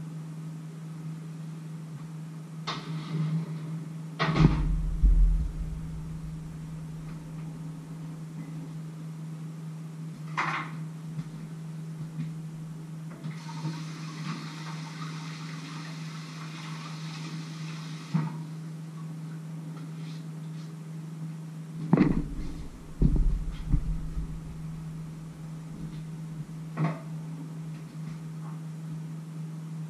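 Kitchen clatter: a series of knocks and thumps of cookware and the oven door being shut, the heaviest about four seconds in and again around twenty-two seconds. A steady low hum runs under it, and a few seconds of hiss come in the middle.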